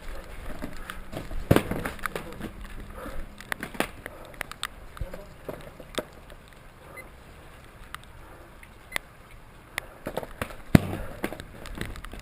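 Irregular close knocks and clicks, with the loudest about one and a half seconds in and again near the end.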